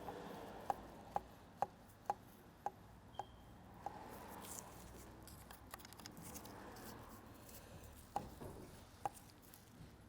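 Hand work on a V10 oil pump being stripped down: a run of sharp taps about two a second over the first three seconds, then scattered clicks and handling noise of the parts.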